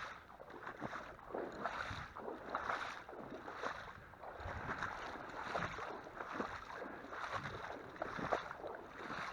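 Irregular sloshing and splashing of shallow marsh water as someone wades through it, with light wind on the microphone.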